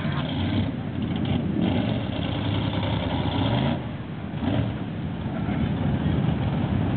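Engines of off-road trucks and ATVs running and revving, their pitch rising and falling, with a brief dip in loudness about four seconds in.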